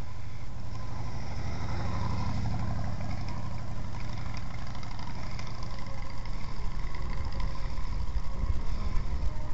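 An engine running steadily with a low rumble, getting rougher in the low end about halfway through.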